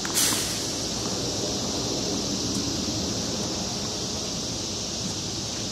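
Steady outdoor background noise with wind on the microphone, and a short rush of noise just after the start.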